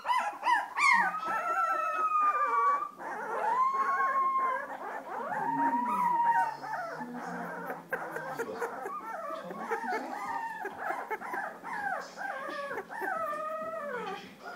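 A litter of young puppies whining and howling, several high, wavering cries overlapping one another.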